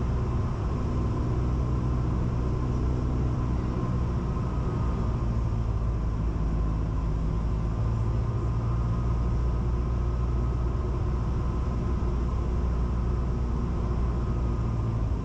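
Cessna 172 Skyhawk's engine and propeller running steadily at reduced approach power, heard from inside the cabin, with a constant hiss of air.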